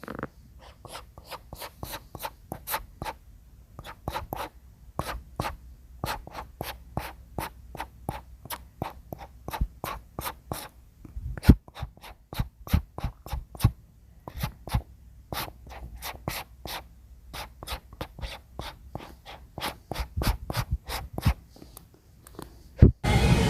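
A brush stroked back and forth on wood: short, quick scratchy strokes, about three a second, with brief pauses. Music comes in just before the end.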